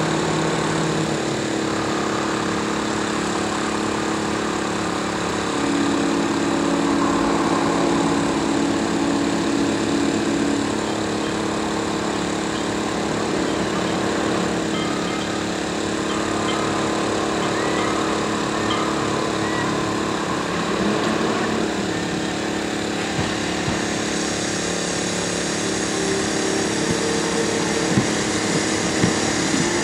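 Steady engine and machinery drone, with several constant humming tones that grow louder for a few seconds in the first third.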